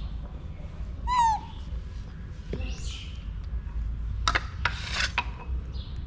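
A monkey gives one short, loud, falling squeal about a second in, followed a few seconds later by rustling and rubbing sounds with a few sharp scrapes.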